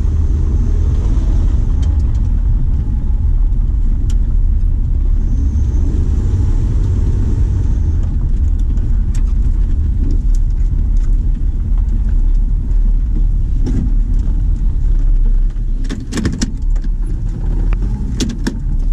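Car engine running as the car drives slowly over rough ground, a steady low rumble heard from inside the cabin. A cluster of sharp rattles and knocks comes near the end.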